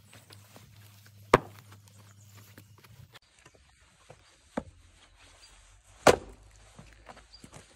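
Axe chopping into a large log round on a chopping block: one heavy strike about six seconds in, the loudest sound. Before it come a sharp wooden knock a little over a second in and a lighter knock.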